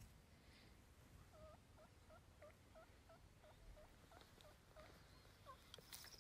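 Faint series of about a dozen turkey yelps, about three a second, each note dipping and rising in pitch.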